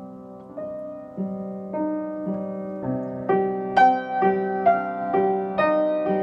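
Upright piano played solo: chords struck about twice a second, growing louder and brighter with higher notes from about three seconds in.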